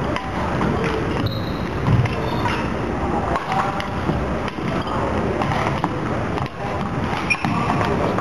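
Badminton doubles rally: a string of sharp racket hits on the shuttlecock and players' footwork on the wooden court floor, echoing in a large sports hall.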